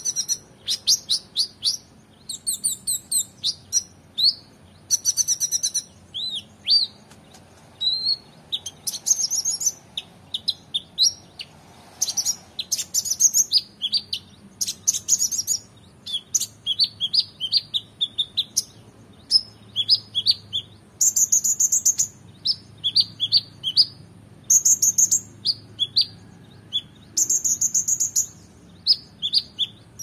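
Male kolibri ninja (Van Hasselt's sunbird) singing a fast, varied song of high chirps, short rattling trills and upturned notes, delivered in quick phrases with brief pauses between them.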